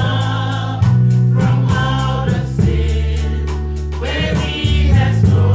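Gospel music: a choir singing over held, heavy bass notes that change about once a second.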